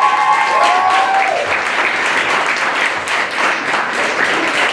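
Audience applauding steadily, with a couple of long held cheering voices over it in the first second or so.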